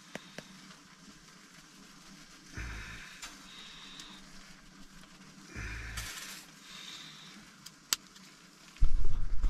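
Lake trout frying in a stainless steel pan, a faint steady sizzle with a few light clicks and soft swells of noise. Near the end a loud, rough clatter and rustle as the pan is handled.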